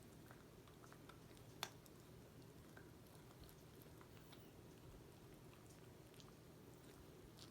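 Dog chewing a treat, faint: scattered soft clicks and crunches, with one sharper click about a second and a half in, over a low room hum.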